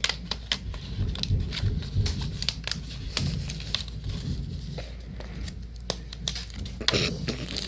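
Stiff paper model pieces being handled and pulled free of their card sheet: irregular crinkling and tearing with many small sharp clicks and snaps.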